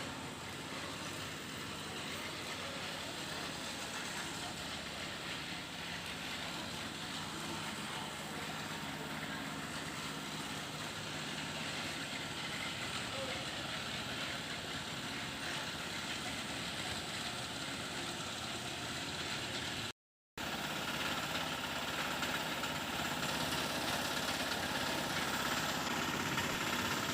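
A small engine running steadily at a constant speed on a concrete job site. It cuts out briefly about twenty seconds in, then runs on a little louder.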